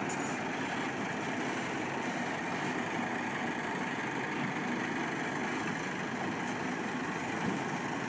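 Semi-truck diesel engine running steadily at low revs as the tractor slowly backs a box trailer.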